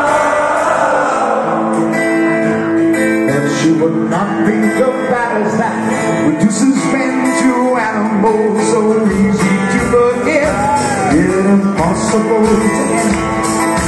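Rock band playing live in a club, heard from within the crowd: acoustic guitar, drums and a male lead singer. The audience is singing along and cheering for the first second or two.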